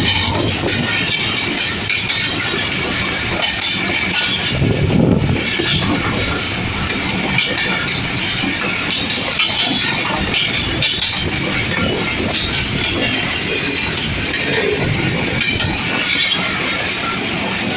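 Passenger coaches of a train rolling past close by: a steady rumble and hiss of steel wheels on the rails, with repeated clicking and clattering as the wheels run over the rail joints and a few low thumps.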